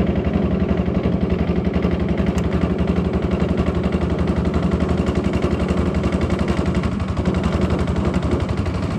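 Small boat engine running steadily, a rapid, even thumping beat with a deep hum.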